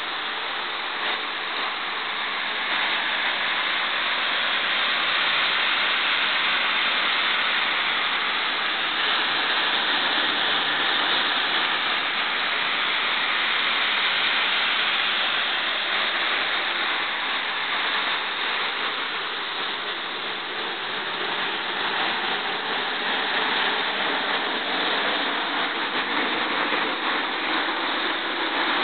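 Lycoming T53-L-13B turboshaft engine running on its first start after overhaul: a steady, dense rush of turbine and exhaust noise that grows a little louder about three seconds in.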